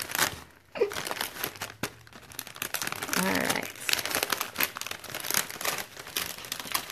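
Clear cellophane treat bag crinkling in irregular bursts as it is handled around a paper crate settled inside it, with a couple of brief lulls.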